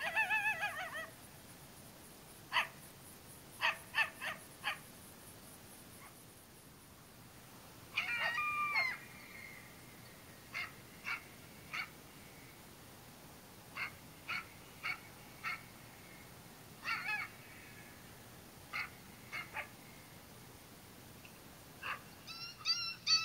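Coyotes calling: a wavering yipping howl at the start and another about eight seconds in, with short sharp barks in clusters of two to four in between and a quicker run of yips near the end.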